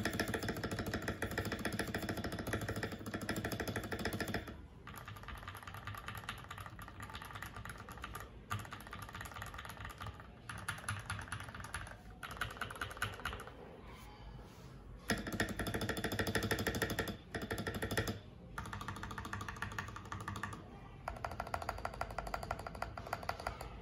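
Typing sound test on a mechanical keyboard fitted with Gateron Pro Milky Yellow linear switches, stock with their factory pre-lube. Rapid keystrokes come in bursts of a few seconds with short lulls between them.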